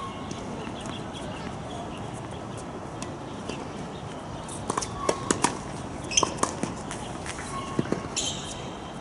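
Tennis balls struck by rackets and bouncing on a hard court during a warm-up rally: a quick run of sharp pops about halfway through and a few more near the end, over a steady background hiss.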